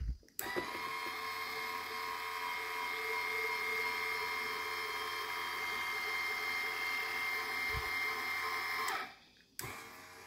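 12-volt electric linear actuator (8-inch stroke) of a homemade trolling-motor power lift, running under its switch with a steady whine, then stopping about nine seconds in as it reaches the end of its travel.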